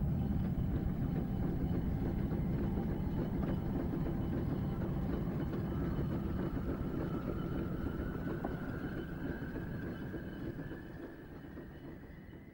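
Slow, droning ambient music over a dense low rumble, with a thin high tone that climbs slowly through the second half. It fades out over the last few seconds.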